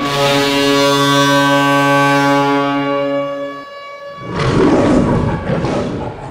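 Ice hockey arena goal horn sounding a long, steady chord of several tones, which cuts off about three and a half seconds in. Half a second later comes about two seconds of loud, noisy rushing sound.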